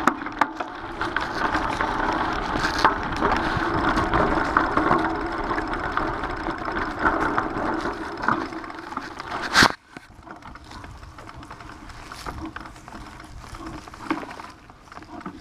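Mountain bike rolling over a gravel path and rough ground: tyres crunching with a steady clatter of small rattles from the bike. A sharp knock just under ten seconds in, then much quieter with a few light knocks.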